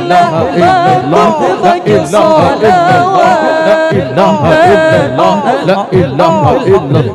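Zikir saman: several male voices singing an Islamic devotional chant together, with long held notes and ornamented, wavering melodic lines.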